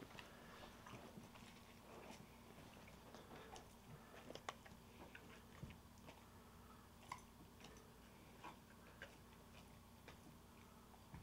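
Faint, scattered crunching and clicks of a borzoi chewing and picking up crumbly pieces of a treat, over a low steady hum.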